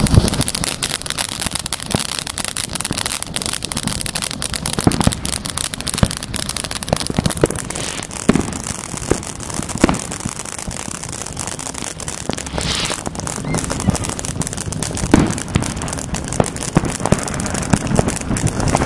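Fireworks going off: a dense, continuous crackle with frequent sharp bangs at irregular intervals.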